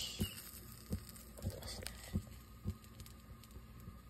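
Faint sizzle of floured dove breasts frying in a small nonstick pan, under a steady hum. A series of soft low thumps, about two a second, is the loudest thing.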